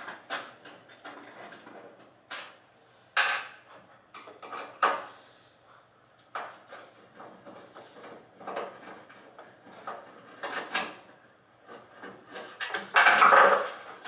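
Scattered clicks, scrapes and knocks of a screwdriver loosening screws on a refrigeration unit's stainless-steel side panel, with the panel being handled.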